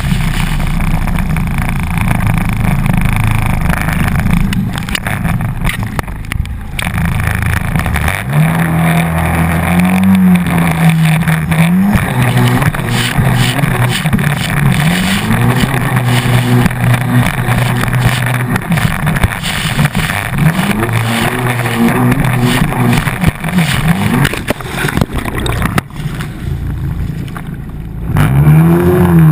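Hydrospace 110 hp stand-up jetski engine running under throttle, its pitch repeatedly climbing and falling as the rider accelerates and eases off, over a steady rush of wind and water on the helmet camera. Near the end the engine note drops briefly, then rises again.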